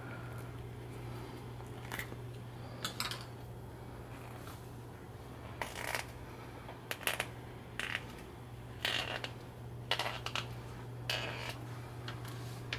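Small 3D-printed plastic parts being handled and set down on a wooden tabletop: light clicks and rustles every second or so, over a steady low hum.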